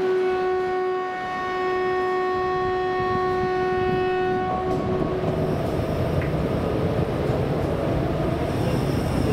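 Kurobe Gorge Railway trolley train's horn sounding one long steady note for about four and a half seconds. The train's low running rumble then takes over.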